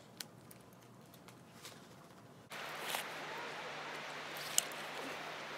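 A few faint clicks from a metal clip being handled on a fishing net, then, about two and a half seconds in, a sudden switch to the steady rushing of a river, with one sharp click about two seconds later.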